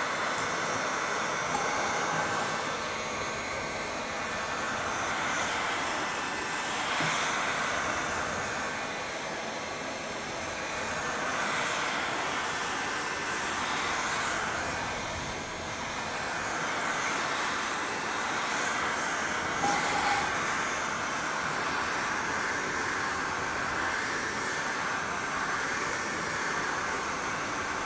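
Electric heat gun running steadily, its fan blowing hot air over a car headlight to soften the lens sealant so the lens can be removed. The rush of air swells and fades every few seconds as the gun is moved along the headlight.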